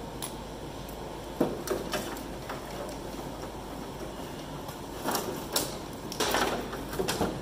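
Scattered clicks, knocks and scraping as hands work wiring and parts loose inside a combine's sheet-steel dash console. There are a few knocks early in the second second, and they come more often in the second half.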